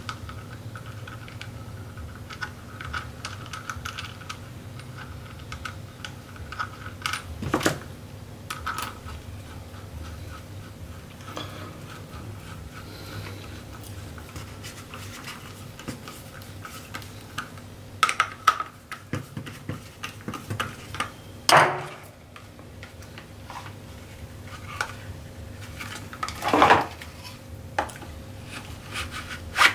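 Hand assembly of a black Kydex holster: a screwdriver turning the belt-clip screws, with scattered clicks and knocks of the hard plastic shell and metal hardware and a few louder scrapes. Near the end, a plastic training pistol is pushed into the holster.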